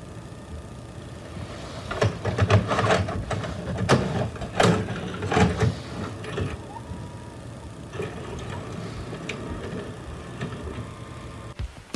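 A VHS cassette handled and pushed into a Samsung VCR, a run of plastic clacks and knocks, followed by the deck's mechanism running more quietly with a faint hum and a few single clicks as it loads the tape.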